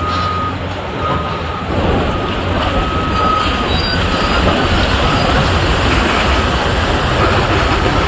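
Building demolition: heavy excavators working a concrete building, with a dense rumble of concrete coming down that grows louder about two seconds in. A high metallic squeal comes and goes several times.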